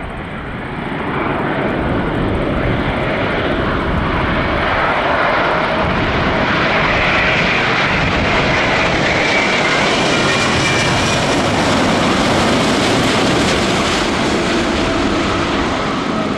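Jet engines of a TAP Airbus A330neo, its Rolls-Royce Trent 7000 turbofans, on final approach: a steady roar with a faint whine. It grows louder about a second in and stays loud as the airliner passes close overhead toward the runway.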